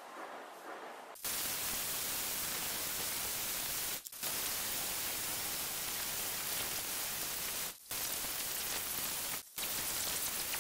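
Variable-speed disc grinder with a cup wire brush scrubbing the rough-cast surface of an aluminium engine head cover, starting about a second in and heard as a dense, even hiss. The hiss is cut off briefly three times, at about four, eight and nine and a half seconds.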